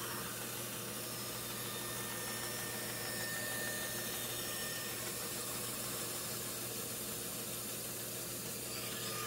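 Band saw running with a steady hum and hiss as its blade rips a stopped cut lengthwise into a solid wood blank.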